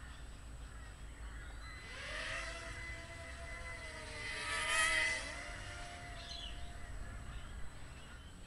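Small electric motors of a LadyBird V2 FPV micro quadcopter whining as it lifts off and flies, the pitch rising about two seconds in and wavering with the throttle. Steady hiss and faint electronic tones run underneath, with a louder burst of hiss around the middle.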